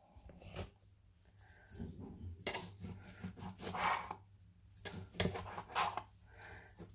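Knife cutting raw pork into small cubes on a cutting board: faint, irregular knocks and scrapes of the blade.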